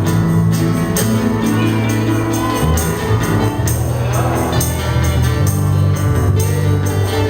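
Live acoustic band playing: acoustic guitars and sustained low notes over a steady cajón beat.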